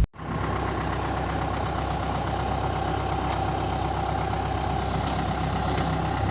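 Backhoe diesel engine idling steadily, with an even low hum that does not rev or change.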